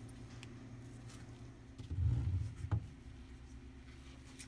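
Handling noises at a workbench: a dull low bump about two seconds in, followed by a short click, over a steady low hum.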